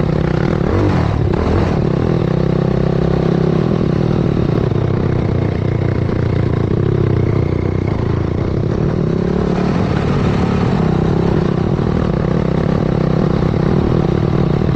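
Yamaha YFZ450 quad's single-cylinder four-stroke engine, bored out to 501cc and fitted with a sport exhaust, running hard. About a second in, the revs dip briefly and climb back.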